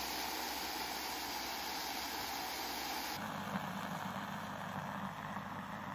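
Instant electric milk frother running on its thick-foam setting: a steady whir from the spinning frothing whisk churning the milk. The sound changes slightly about three seconds in.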